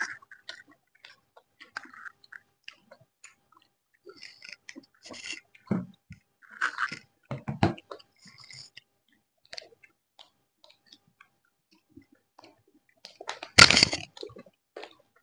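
People chewing and crunching fried chicken pakoda, with irregular mouth noises and small bites. A louder burst of noise comes near the end.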